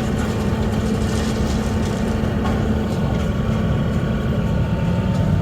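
Mini excavator's diesel engine running steadily at a constant speed.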